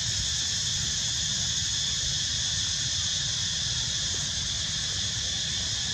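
Steady insect chorus: several high, shrill tones that hold without a break, over a low rumble of wind on the microphone.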